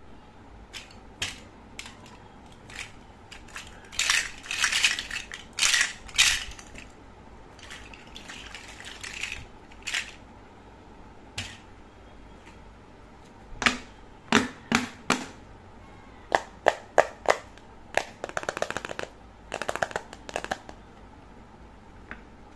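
Hard plastic toy fruit and a toy cutting board being handled and set down on a cloth, giving scattered sharp clicks and knocks with several short bursts of rattling clatter.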